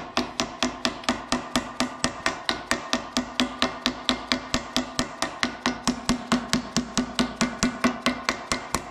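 Rapid, even tapping of a mallet, about five blows a second, seating a stainless steel wire O-ring into the groove cut around a cylinder bore of a 12-valve Cummins cylinder head. The iron head rings between blows.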